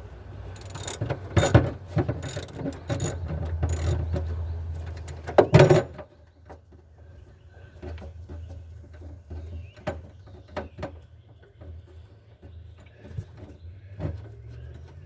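Hand ratchet clicking in quick strokes, with metal clatter over a steady low hum for about six seconds. After that come only scattered light clicks and knocks.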